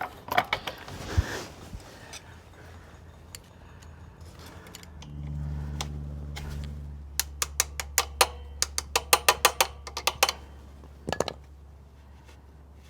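Sharp metallic clicks and clinks of pliers working the steel pins and split pins of a motorcycle footrest mount, coming in a quick run of a dozen or so about seven to ten seconds in. A low hum sets in about five seconds in.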